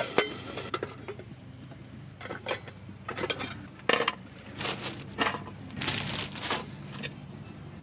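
Ground taco meat sizzling in a frying pan, the hiss dropping away about a second in, then a run of short scrapes and clinks of a utensil against the pan as the meat is stirred.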